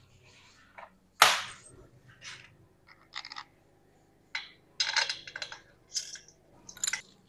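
Steel bolts clinking and tapping against an aluminum intake manifold as they are set into its bolt holes, with one sharp metallic knock about a second in and a run of quicker clinks in the second half.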